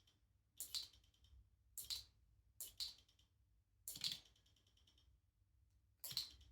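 Shimano GRX RD-RX825 12-speed Di2 rear derailleur shifting, five short electric whir-clicks spaced about a second apart; the ones around four seconds in and near the end are followed by a fast run of fine ticking. The ticking after shifts is, per Shimano, stock behaviour for this derailleur, though the owner suspected a skipping or stripped plastic gear inside.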